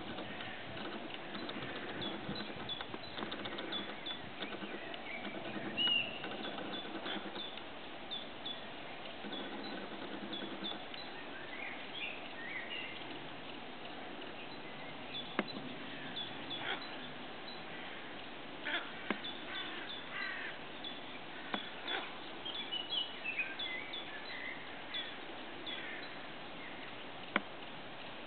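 Scattered short bird chirps and calls from several small birds, over a low steady murmur that fades after about ten seconds, with a few sharp clicks.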